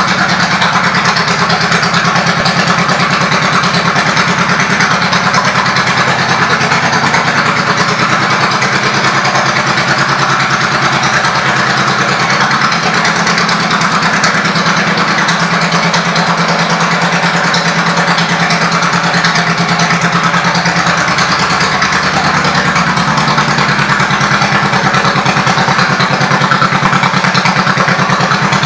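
2003 Honda VT1100 Sabre's V-twin engine idling steadily through its aftermarket Cobra exhaust pipes.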